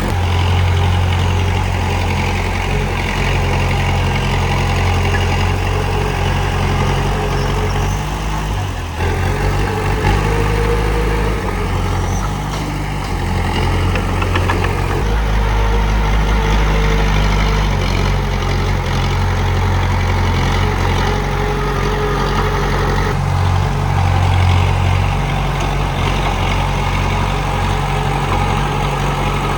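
Komatsu D31P bulldozer's diesel engine running steadily with a strong low hum; its sound changes abruptly a few times.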